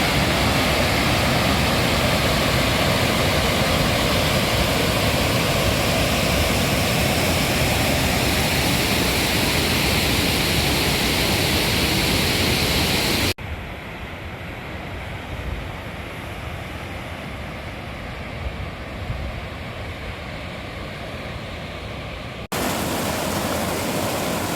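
A fast, high-flowing mountain creek rushing loudly and steadily. About 13 seconds in the sound drops suddenly to a quieter, duller rush, and it jumps back to full loudness a couple of seconds before the end.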